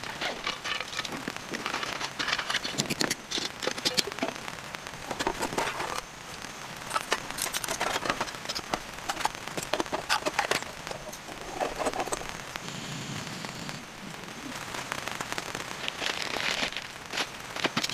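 Close-up handling sounds of camping gear and food packaging: a nylon pouch rustling, lightweight table and cookware parts clicking and clattering, and plastic wrappers crinkling. These come as a busy string of short, uneven clicks and rustles.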